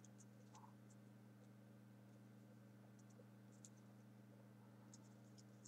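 Near silence: a faint steady hum, with a few faint ticks from folded paper pieces being pressed into a 3D origami model.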